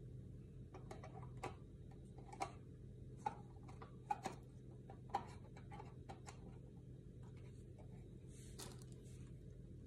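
Light clicks and taps of a small solar lantern's metal frame, glass panes and bulb base being handled and fitted together, about six over the first five seconds, with a short soft rustle near the end.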